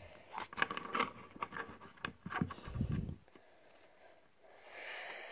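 Pokémon trading cards being handled: a run of small clicks and scrapes as the cards slide against each other in the hands, stopping about three seconds in. A faint hiss follows near the end.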